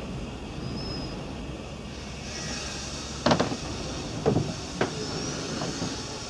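A few dull knocks over a steady low rumble; the first, about three seconds in, is the loudest.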